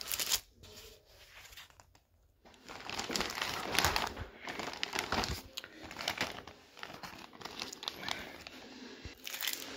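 Clear plastic bag crinkling and rustling as it is handled. After a short crinkle at the start and a quieter couple of seconds, it picks up about two and a half seconds in and keeps going in uneven bursts.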